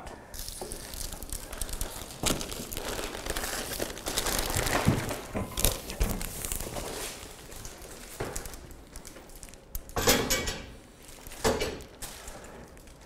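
Plastic packaging and wrapping crinkling and rustling as a large wrapped display panel is lifted out of its box and handled, with scattered knocks and shuffling. Louder rustles come about 5, 10 and 11 seconds in.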